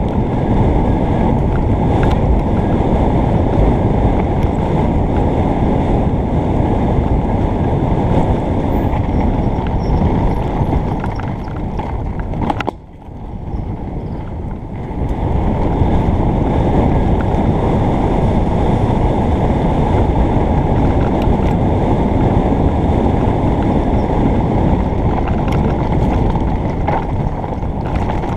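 Wind buffeting a helmet-mounted camera's microphone, mixed with the tyres and bike rumbling over a dirt trail on a fast mountain-bike descent. The rushing noise drops off suddenly about halfway through as the bike slows, then builds again.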